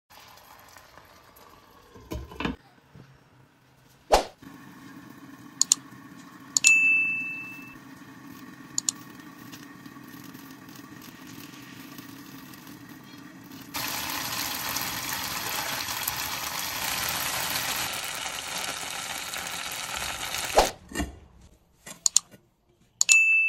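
Dumplings frying in oil and flour-water batter in a lidded pan: a steady sizzling hiss that grows much louder about halfway through and then stops suddenly. A few knocks of cookware and two short, high metallic rings are heard along with it.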